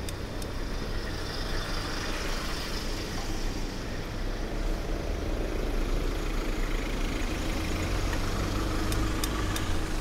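Street traffic: a steady low engine rumble from motor vehicles, with a swell in the noise a couple of seconds in as a vehicle passes. A few sharp clicks come near the end.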